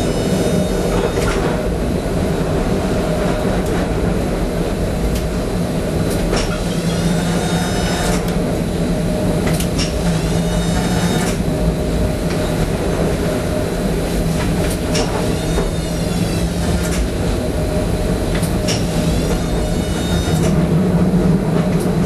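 Tram running along its track: a steady hum of wheels and motors, with sharp knocks over rail joints several times and short high squeals after some of them.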